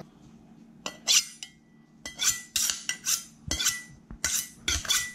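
A chef's knife drawn back and forth along a honing steel: a dozen or so quick metal-on-metal scraping strokes starting about a second in, with a faint ring from the steel.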